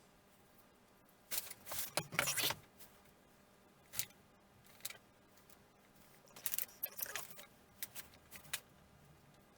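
Intermittent handling noises of building work: two short scrapes, a couple of single clicks, then a run of scraping and clicking near the end.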